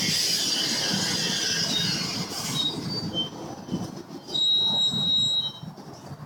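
Train rolling past, its wheels squealing on the rails: a dense high-pitched screech that thins out after a couple of seconds, then short squeals and one long steady squeal about four seconds in, over a low rumble.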